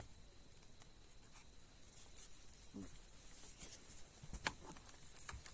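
Faint footsteps and rustling of hikers walking, a scatter of soft clicks, with one sharper click or snap about four and a half seconds in.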